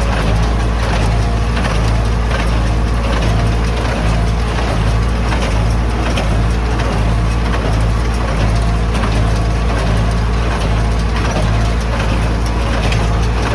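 Tractor engine running steadily under load while a small square hay baler works, with repeated mechanical knocks and rattles of the baler's plunger and knotter packing hay.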